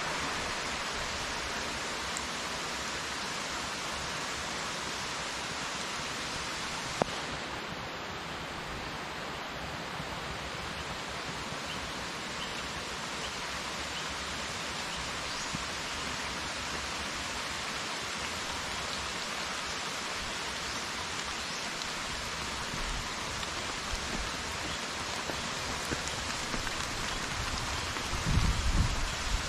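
Steady hiss of rain falling on paving and plants, with a single sharp click about seven seconds in.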